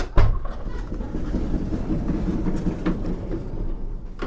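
A VW Crafter's side step mechanism running through its travel: a clunk, about four seconds of steady rattling mechanical rumble, then a clunk as it stops. The owner finds it noisy and traces this to the step scraping on the nearby plastic trim as it runs along its track.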